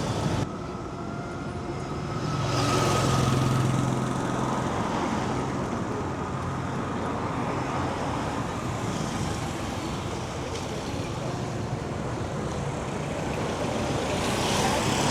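Street traffic noise: vehicles passing on a busy road, with one engine hum swelling as a vehicle passes close about three seconds in and another vehicle passing near the end.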